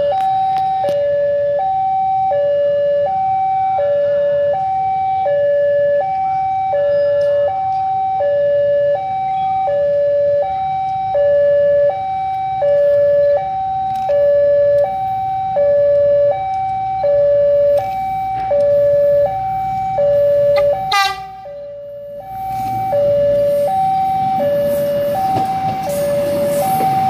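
Railway level-crossing warning alarm sounding its two-tone signal, a high and a low note alternating about once a second. It breaks off briefly about three-quarters of the way through. Near the end the rumble of a commuter train rises under it as the train reaches the crossing.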